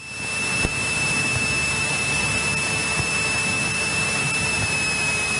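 Airband radio hiss with a steady high whistle: an open transmission carrier with no voice on it, coming through the radio's speaker.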